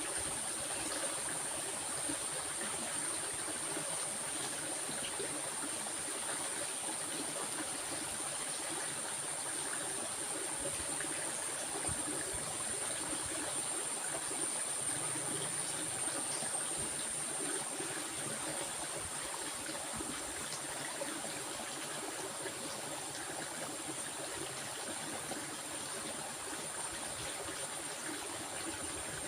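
A stream of water flowing steadily, an even rushing trickle with a steady high-pitched tone above it.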